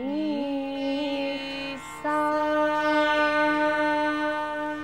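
Indian classical singing over a plucked tanpura drone. A woman's voice bends and ornaments a phrase, then about two seconds in a long steady note is held.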